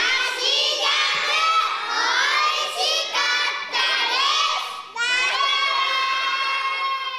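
A group of children shouting a phrase together in chorus, in several short phrases, then after a break about five seconds in, one long drawn-out shout that trails off.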